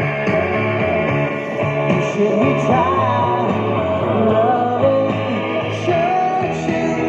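Rock and roll song playing, with a singing voice over guitar and a steady bass line.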